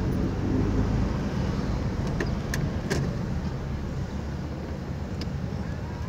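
Car driving, heard from inside the cabin: steady engine and road noise with a low rumble, and a few short clicks and rattles scattered through it.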